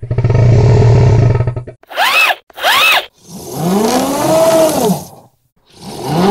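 Recordings played back slowed down: a squeezed rubber pig squeak toy at quarter speed, drawn out into a low buzzing tone for nearly two seconds. Then the whine of a hand-crank emergency radio's dynamo, slowed, each burst rising and then falling in pitch: two short ones, then two longer sweeps of about a second and a half.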